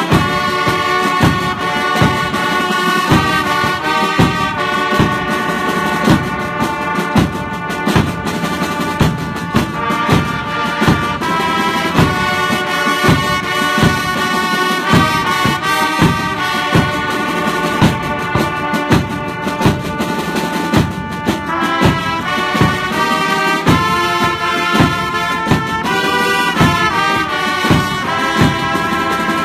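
Brass band music: brass instruments holding melody notes over a steady drum beat of about one stroke a second.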